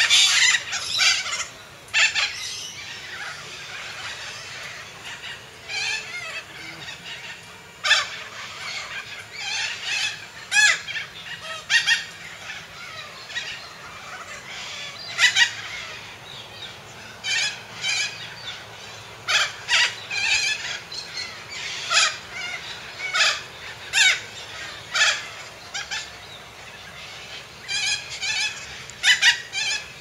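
Cockatoo calling: short, harsh screeches repeated at irregular intervals, some much louder than others.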